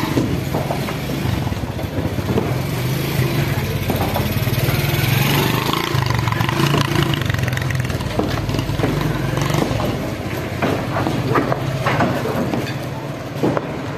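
An engine running steadily with a low drone, joined in the second half by many scattered knocks and crunches.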